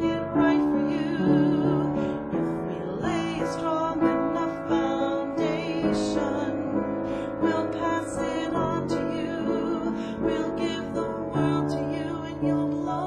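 An electric keyboard playing slow, sustained piano chords, with a woman singing softly over it.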